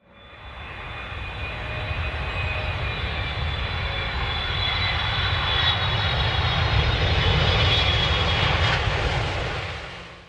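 Quadcopter drone's propellers whining steadily at a high pitch over a hiss and a low rumble, fading in at the start, growing louder toward the middle and fading out at the end.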